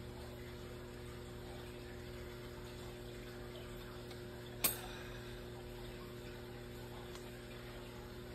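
A pancake frying in oil in a covered pan, a quiet steady sizzle over a steady electrical hum. One sharp click about halfway through.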